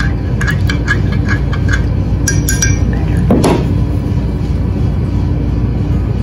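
Metal spoon stirring a thick cornstarch-and-water mixture in a glass measuring cup, clinking against the glass about three times a second for the first couple of seconds, over a steady low rumble. About three seconds in there is a brief squeak as the stirring stops and the cup is lifted.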